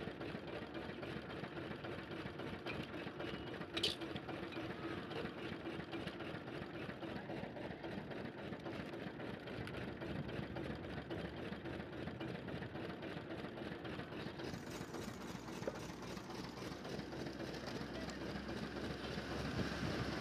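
Engine-driven sugarcane juice crusher running steadily, its engine and geared rollers making a constant mechanical hum, with one sharp knock about four seconds in.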